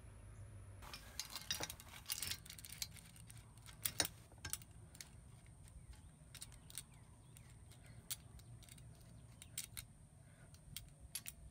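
Irregular light metallic clicks and clinks of two Channellock pliers being handled and clamped onto the shank of a king pin reamer, starting about a second in, with the sharpest clink about four seconds in.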